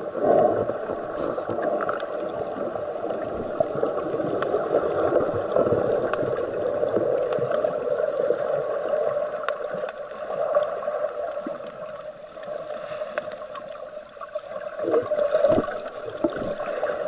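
Muffled underwater water noise picked up by a camera submerged just below the sea surface while snorkeling, a steady rush with scattered faint clicks. It dips quieter for a couple of seconds past the middle and grows rougher again near the end.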